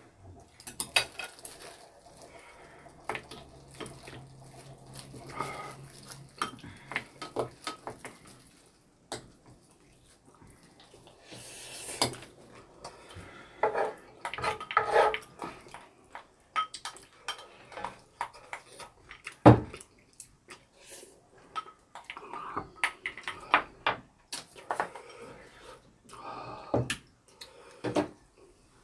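Eating utensils clicking and scraping against plates and bowls during a meal, in irregular clicks and knocks, with one louder knock about two-thirds of the way through.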